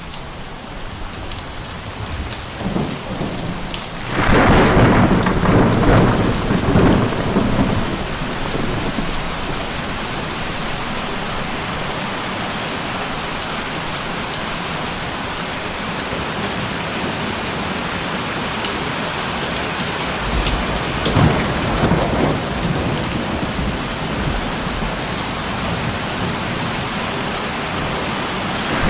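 Thunderstorm: steady heavy rain, with a loud roll of thunder about four seconds in that rumbles for several seconds, and a second, sharper thunderclap with rumble about two-thirds of the way through.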